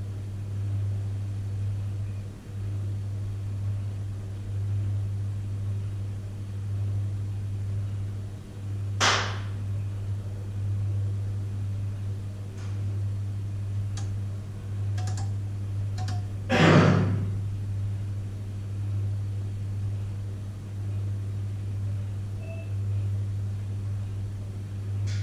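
Microwave oven running with a steady low hum. Two short thuds sound inside it about nine and seventeen seconds in, with a few faint ticks between them.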